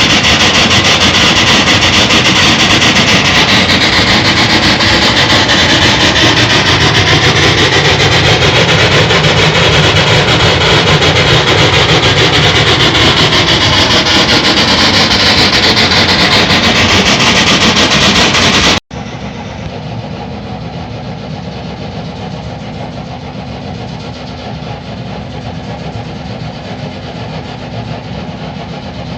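Natural gas jetting from an open well blowout (uncontrolled gas fountain): a loud, steady rushing hiss. About nineteen seconds in it cuts off suddenly, giving way to a quieter steady rush with a low steady hum.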